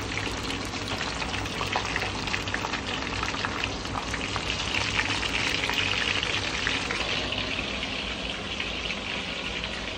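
Mackerel deep-frying in hot oil: a steady, dense sizzle full of small crackles and pops.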